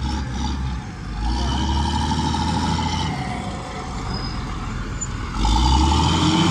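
Motor grader's diesel engine running under load as it grades a wet mix macadam road base: a steady low drone with a higher whine that comes and goes, louder about five seconds in.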